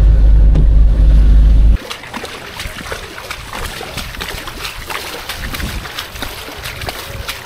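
Steady low rumble of a car's cabin as it drives along a wet, flooded road. About two seconds in it cuts off suddenly to a much quieter patter of rippling floodwater with wind on the microphone.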